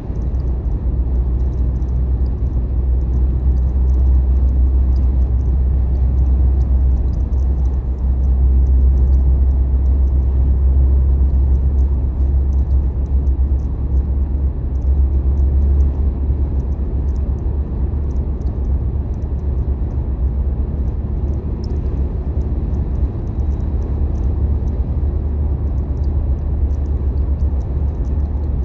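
Sandstorm wind buffeting the microphone: a loud, steady low rumble that swells a little now and then.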